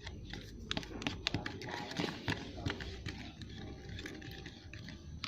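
Clear glue slime being stirred in its container just after activator has been added, as it begins to thicken: a run of irregular clicks and scrapes from the stirrer against the container.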